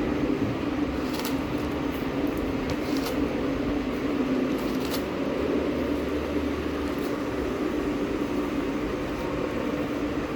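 Steady mechanical hum, like a fan or air-conditioning unit running, with a few faint clicks.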